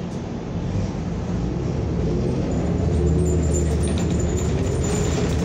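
Inside a New Flyer XN40 compressed-natural-gas city bus pulling away: the engine grows louder and rises in pitch over the first few seconds as the bus accelerates, with road noise underneath.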